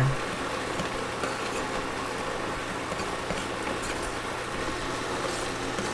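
Electric food processor running steadily, grinding cashews, water and nutritional yeast into a thick sauce.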